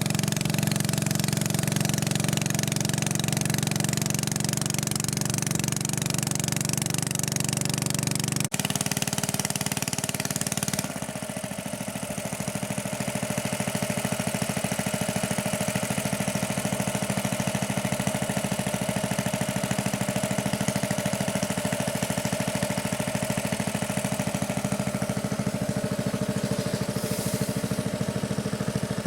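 Motorboat engine running steadily. About eleven seconds in the sound drops abruptly, becoming quieter and less hissy, then carries on at an even beat.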